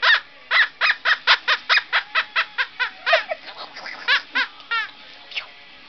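Shorkie puppy yipping, a rapid run of short high-pitched yips about four a second that stops about five seconds in.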